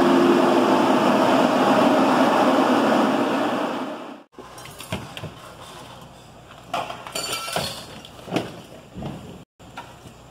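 A loud, steady mechanical drone with a low hum, like a fan or blower running, cuts off suddenly about four seconds in. After it, much quieter scattered clinks and knocks.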